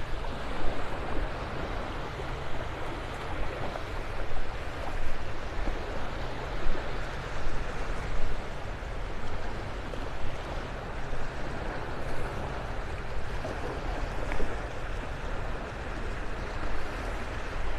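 Gentle surf washing onto a sandy beach: a steady wash that swells and eases, with a low rumble underneath.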